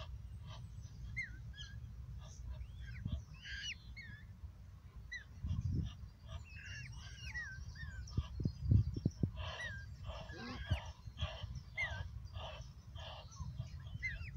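Birds calling around a pond: many short whistled chirps and rising and falling notes, and in the second half a run of harsher calls about two a second. A low rumble with a few dull thumps sits underneath.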